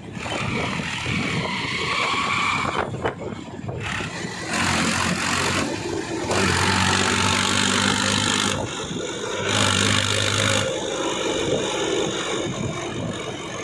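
Diesel engines of a backhoe loader and tractor running, in sections that change abruptly, some with a steady low hum.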